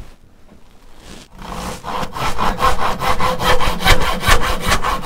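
Freshly sharpened crosscut backsaw sawing through a piece of wood in quick, even strokes that begin about a second and a half in. It cuts with very little effort, the sign of sharp teeth.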